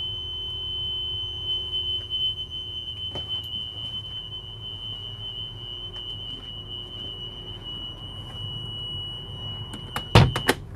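School bus emergency exit alarm sounding a steady high-pitched tone, the signal that the emergency exit window is open. Near the end a few sharp clunks as the exit window is shut, and the tone cuts off.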